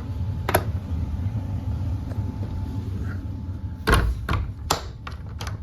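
Hydro air handler's blower running with a steady low hum, with a few sharp knocks or clicks about four seconds in.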